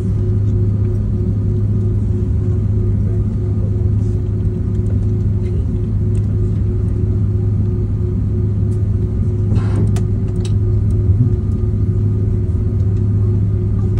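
Steady cabin rumble of an Airbus A330 airliner taxiing after landing, with its jet engines at idle, a constant low hum and a steady higher drone. A brief rustle comes about ten seconds in.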